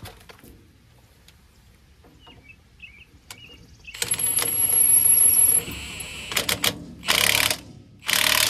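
Cordless impact wrench driving a lug nut onto a trailer wheel with a new tire: a long run with a high whine about four seconds in, a softer rattle, then two short hammering bursts near the end as the nut is snugged down. Small clicks and handling noise before it starts.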